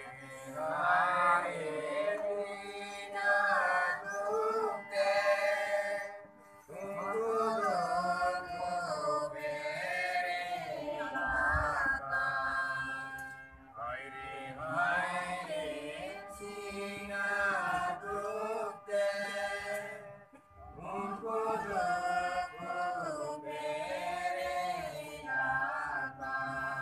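A congregation singing a hymn together to the accompaniment of a small keyboard, in four long phrases with short breaks between them.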